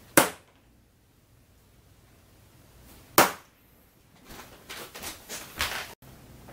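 Soft-tip darts fitted with Cosmo Fit Point Plus tips striking a DARTSLIVE electronic dartboard: two sharp hits about three seconds apart, then a quick run of softer knocks and clicks near the end.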